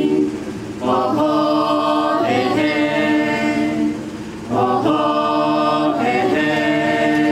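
Mixed choir of young women and men singing a Sema folk song a cappella in harmony: long held chords, with two short breaks for breath, one just before a second in and one a little past the middle.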